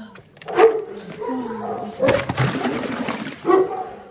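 Dogs whining and barking in short calls. About two seconds in comes a sudden clatter and splash as ice and water are dumped out of a plastic bucket onto frozen ground.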